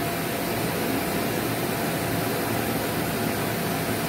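Electric air blower running steadily, keeping an inflatable water slide inflated: an even rushing hum with a faint steady tone.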